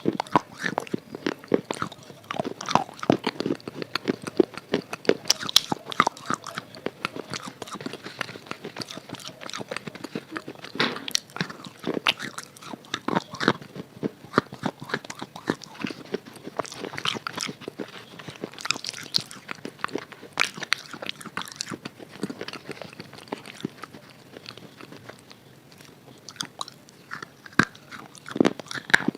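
Crunching and chewing of a red chalk bar coated in red chalk paste, with many sharp crisp crackles; the bites thin out for a few seconds near the end, then one more loud crunch.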